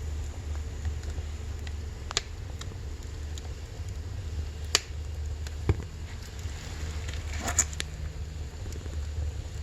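Firewood burning in a wood stove: a handful of sharp crackling pops, with a quick run of them about three-quarters of the way in, over a steady low rumble.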